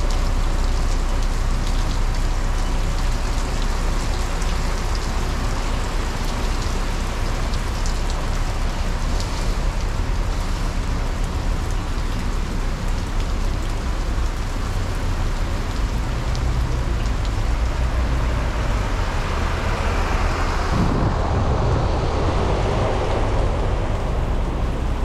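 Steady heavy rain falling, with a low rumble of traffic underneath. About three-quarters of the way through, the hiss of the rain dulls and a broader rushing sound swells up.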